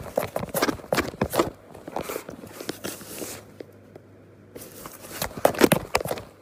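Cardboard box crackling and scraping as a cat moves about inside it, in irregular bursts with a short lull in the middle and the loudest crackles near the end.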